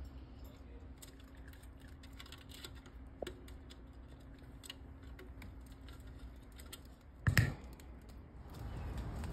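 Scattered light clicks and scratches of a sugar glider's claws on a plastic mesh exercise wheel and wire cage floor, over a faint steady hum. A single loud thump comes about seven seconds in.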